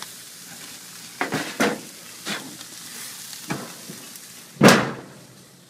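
Burgers sizzling as they fry, a steady hiss broken by several sharp scrapes or knocks, the loudest about four and a half seconds in. The sizzle fades near the end.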